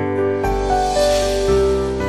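Gentle instrumental background music with held notes that change every half second or so, and a soft hiss-like swell in the middle.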